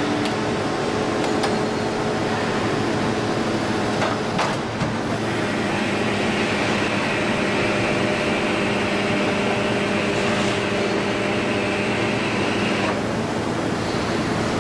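Plastic injection moulding machine running a bottle-crate moulding cycle: a steady mechanical hum with a few sharp clicks in the first five seconds. A higher hiss joins about five seconds in and stops about two seconds before the end.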